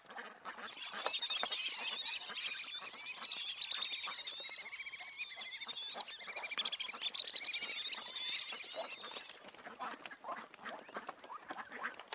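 A brood of Pacific black duck ducklings peeping, many high, rapid, overlapping calls. The peeping stops about nine seconds in, leaving only fainter scattered sounds.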